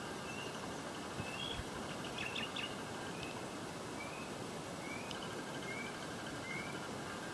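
A bird calling in short, rising high chirps, roughly one a second, over a steady background hiss.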